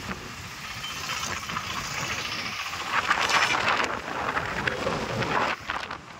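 Rushing noise of a river in flood beside a bridge, mixed with traffic passing on the bridge. It grows louder about three seconds in.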